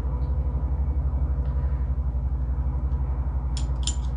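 A steady low machine hum with a fast, even pulsing. Late on, a few sharp metallic clinks as vise-grip pliers and small metal parts are handled.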